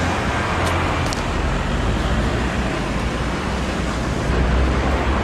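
Steady rumble and hiss of street traffic, with two short sharp clicks about a second in.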